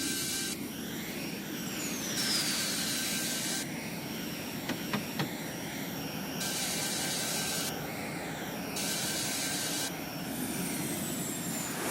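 Electric drill drilling holes in the wall in several bursts of a few seconds each. Each burst starts and stops abruptly, and the motor whine winds down in pitch when the trigger is released. A few sharp clicks come about halfway through.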